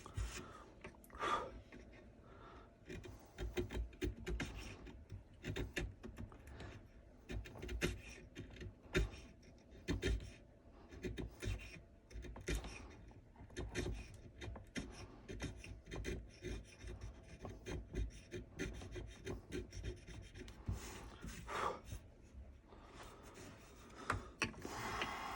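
Hand chisel cutting and scraping into a wooden rifle stock during relief carving, an irregular run of short scrapes and small clicks as chips are pared away.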